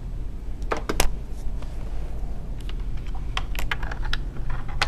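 A run of sharp, irregular plastic clicks and taps, the loudest about a second in, as a laptop's power cord is plugged in and the machine is handled, over a steady low hum.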